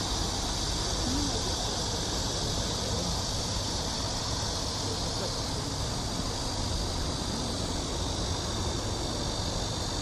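Steady high-pitched drone of a cicada chorus, unbroken throughout, over a low steady rumble.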